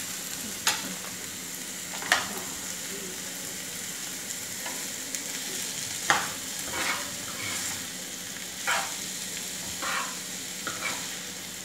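Chopped onions and green chillies sizzling in hot oil in a pan while a spoon stirs them, scraping and knocking against the pan in about seven short strokes. The onions are being sautéed until browned.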